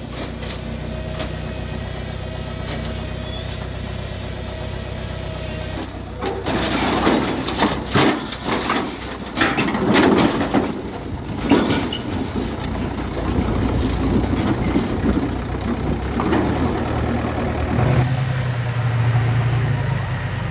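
Heavy diesel construction machinery: an engine running steadily, then from about six seconds louder clattering and knocking mixed in with the engine. Near the end a steadier, deeper engine tone takes over.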